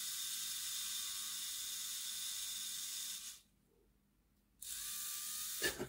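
Small DC motor of a Hornby Class 56 OO gauge model locomotive, powered by a battery, spinning freely with a steady high whir. It cuts out for about a second near the middle and then runs again. It spins now that its brush springs have been stretched so the brushes touch the commutator.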